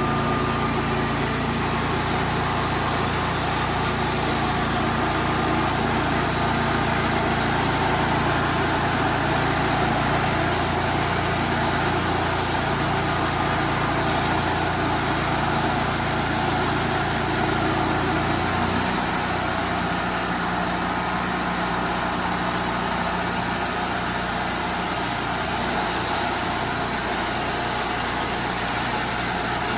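Sawmill engine running steadily while the mill saws a log; the low hum shifts about nineteen seconds in.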